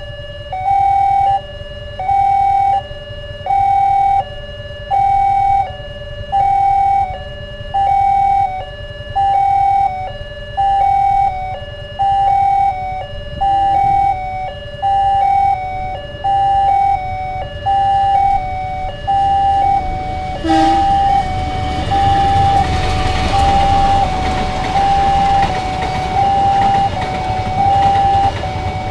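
Railway level-crossing warning siren sounding its two-tone alarm, a higher tone then a lower one, repeating about once a second. About twenty seconds in, the rumble of a passenger train running over the crossing rises under it and continues.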